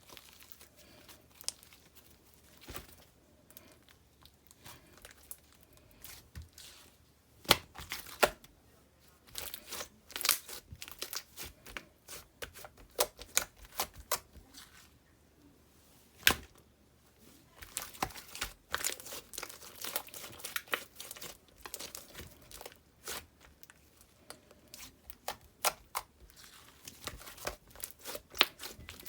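Chorus slime being squeezed and pressed by hand, giving off irregular crackling and popping clicks, sparse at first and then in dense runs.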